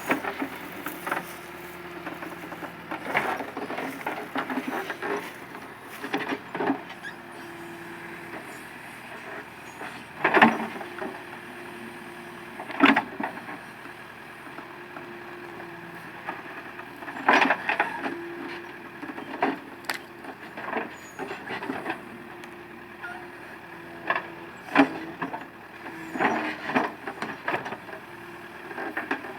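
Caterpillar 428C backhoe loader at work: diesel engine running with a steady whine that comes and goes in stretches of a second or two, and repeated sharp knocks and clanks from the digging gear, the loudest about ten, thirteen, seventeen and twenty-five seconds in.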